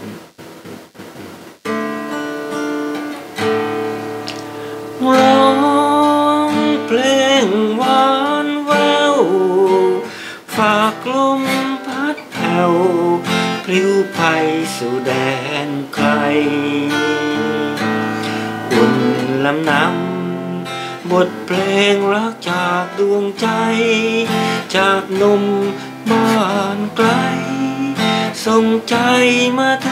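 A man playing a song on an acoustic guitar, picking and strumming. He starts singing along about five seconds in.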